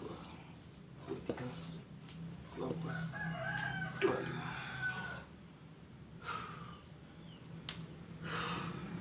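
High-pressure hand pump charging a PCP air rifle: about four strokes roughly a second and a half apart, the last of a 25-stroke set, stopping about four seconds in. A rooster crows in the background partway through.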